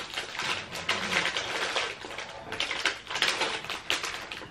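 Plastic cookie tray and its bag being handled as a cookie is taken out, a dense run of crinkling and sharp crackles.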